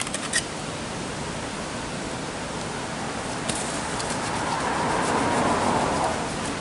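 Steady rushing of water pouring over a weir, with a few light clicks near the start and the rush swelling a little louder about four to six seconds in.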